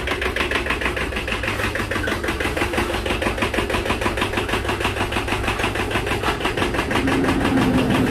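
Small farm tractor's diesel engine running steadily with an even, rapid pulsing, powering a homemade sweet potato harvester on a test run; a steady hum comes in near the end.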